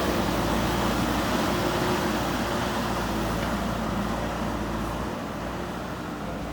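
A motor running steadily with a hum of several steady tones, easing down in level over the last couple of seconds.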